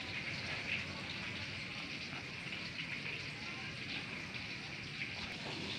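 Cooking oil sizzling steadily in a pan: an even crackling hiss of frying.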